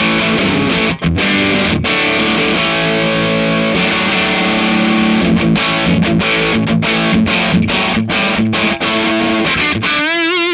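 Fender Stratocaster played through a Marshall JCM2000 DSL100 valve head in crunch mode, giving distorted chords with brief stops between them and a wavering, vibrato-laden note near the end. The amp is being play-tested on its Classic Gain channel after a main circuit board replacement.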